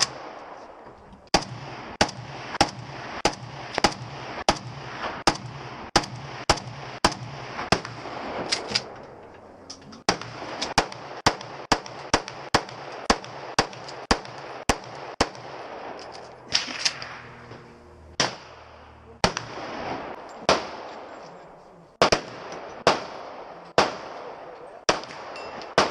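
Gunshots at a shooting range, fired in steady strings of roughly one shot every two-thirds of a second, each crack followed by a short echo. After a brief pause about nine seconds in, the shooting resumes, then slows to more spaced-out shots in the second half.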